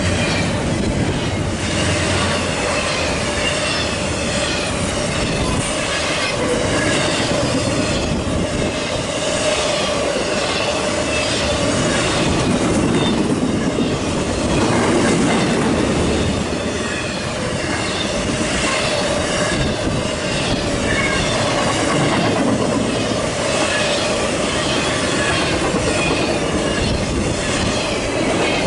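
Intermodal freight cars loaded with double-stacked containers and highway trailers rolling past at speed: a steady rumble and rattle of wheels on rail, with repeated clacks as the wheels pass over joints. A steady high tone, likely wheel squeal, runs through it.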